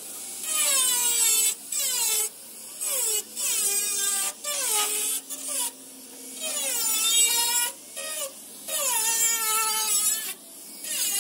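A voice singing in short phrases, the pitch sliding down at the end of many of them.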